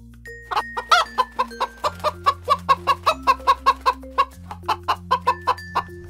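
Domestic hen clucking in a fast, even run of about five short clucks a second, starting about half a second in. Soft background music plays underneath.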